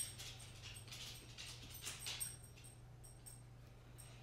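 Near-quiet room tone: a faint steady low hum with a few soft, scattered clicks.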